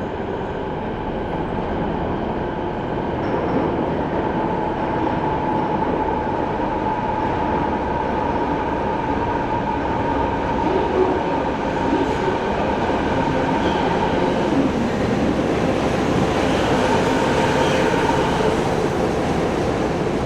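Kobe Municipal Subway 1000-series train, refitted with IGBT VVVF traction control, running on the line: dense rail and wheel rumble with a hiss. A steady tone sits over the noise and fades about halfway through, and the whole sound grows slightly louder.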